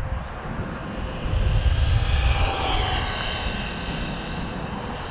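Brushless electric motor and drivetrain of an Arrma Vorteks 3S RC stadium truck at speed on a 2S battery: a high whine that swells about halfway through and then fades. Strong wind buffets the microphone with a low rumble.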